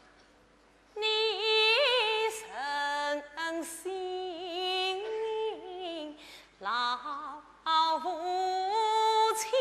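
Solo female voice singing a Yue opera aria in phrases with wavering vibrato, starting about a second in after a moment of near silence.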